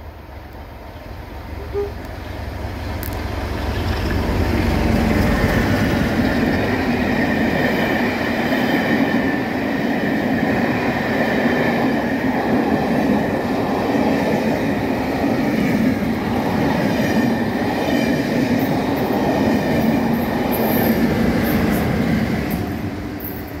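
A passenger train with a Class 47 diesel locomotive at each end passing close by. The noise builds over the first few seconds as it comes near, then holds as a loud, steady rush of engines and wheels on rail. It eases off shortly before the end as the rear locomotive goes past.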